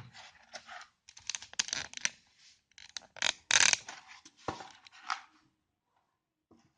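Hands handling an SSD's retail packaging: a scattered run of small clicks, taps and brief scraping rustles, with one louder scrape about halfway through, then quiet near the end.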